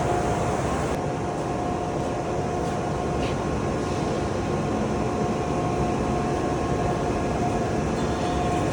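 Machinery running steadily: an even rumbling noise with a constant high whine held over it.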